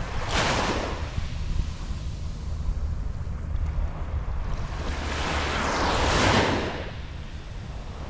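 Small, gentle waves washing up onto a sandy beach: a short hiss of water over the sand just after the start, then a longer wash that swells about five seconds in and fades away, over a steady low rumble.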